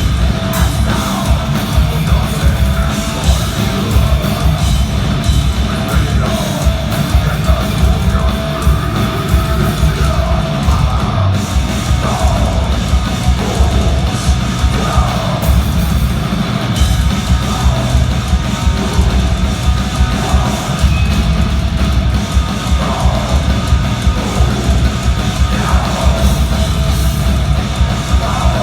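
Heavy metal band playing live at full volume: dense, continuous drumming under distorted guitars.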